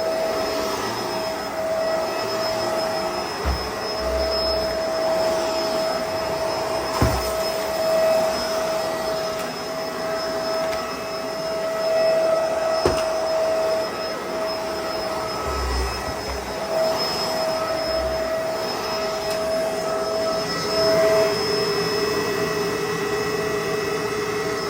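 Bissell 2-in-1 Lift-Off vacuum running with a steady motor whine while it sucks up crunchy debris, with a few low bumps and two sharp clicks, about a third of the way in and about halfway.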